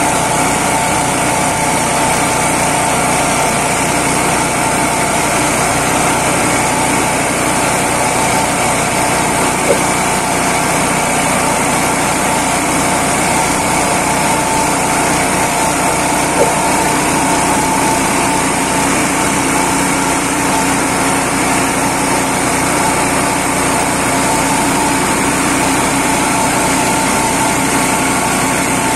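Small engine-driven dry-leaf shredder running steadily at constant speed while chopping dry leaves fed into its hopper, with two or three brief sharp ticks.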